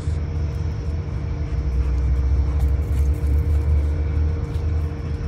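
A steady low rumble with a faint, even hum over it.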